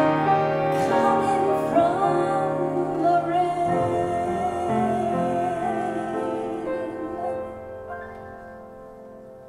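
A woman sings the last held, wavering notes of a slow ballad with grand piano accompaniment. About seven seconds in the voice ends and the piano's final notes fade away.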